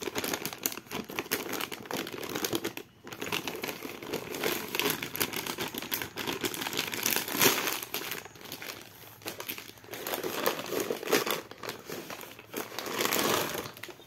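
Clear plastic wrapping crinkling and rustling as it is handled on a stainless-steel flexible exhaust pipe. The crackling comes and goes, with a short pause about three seconds in.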